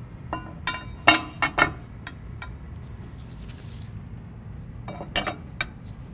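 Two steel sections of a Rexroth ball rail (linear guide float rail) clinking and knocking against a metal base and each other as they are set down and butted together. A cluster of sharp metallic clinks, some briefly ringing, comes in the first two seconds or so, loudest about a second in, and a few more about five seconds in.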